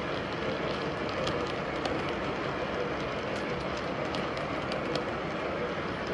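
O-gauge model freight train's cars rolling steadily past on the track, a continuous rolling rumble with irregular light clicks from the wheels.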